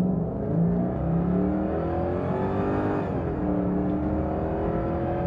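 1996 Jaguar XK8's V8 on its standard exhaust, heard from inside the cabin under full-throttle acceleration in sport mode. The engine note climbs steadily in pitch, drops sharply as the automatic gearbox upshifts about three seconds in, then climbs again.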